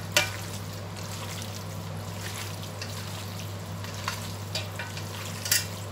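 Hands squishing and tossing marinated chicken strips in a stainless steel tray: soft wet squelching with a few sharp clicks, one just after the start and several more in the second half. A steady low hum runs underneath.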